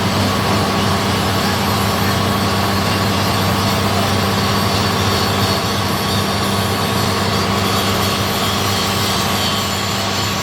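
Heavy diesel engine of an excavator running steadily, a constant low drone with a broad mechanical noise over it.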